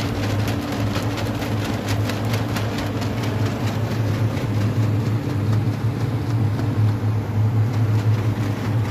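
Air blower used for clearing debris, its motor running with a steady low hum, along with many quick ticks and rattles that thin out after about five seconds.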